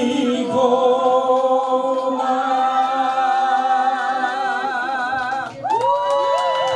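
A man's voice holding the long final note of a song with vibrato over a backing track. It stops about five and a half seconds in, and the accompaniment plays its closing notes.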